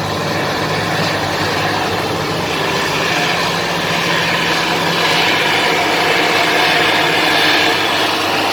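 Bulldozer's diesel engine running steadily, with a rising hiss that grows louder a few seconds in.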